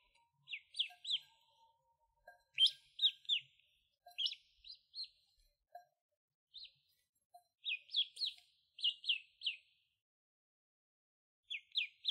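Duckling peeping: short, high, falling peeps in quick runs of three or four, repeated every second or two with brief pauses.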